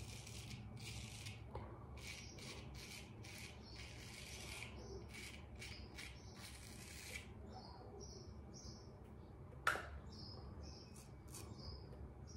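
Full hollow ground Japanese straight razor (Hayashi Diamond 8000) scraping through lathered stubble in a run of short strokes, each a crisp rasp; the strokes turn shorter and lighter in the second half. A single sharp click about three-quarters through.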